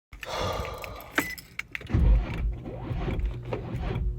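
Car keys jangling and sharp clicks of car door handling, with a heavy low thump about two seconds in, followed by a steady low hum.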